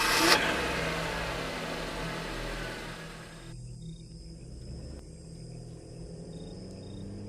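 Car engine sound effect: a rev just after starting that fades over the first three seconds or so, settling into a steady low engine hum. Faint crickets chirp in a regular pattern in the second half.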